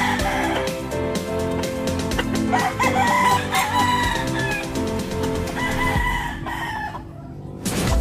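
Gamefowl chickens calling, with three long calls: at the start, about three seconds in, and around six seconds in. Background music with a steady beat plays underneath.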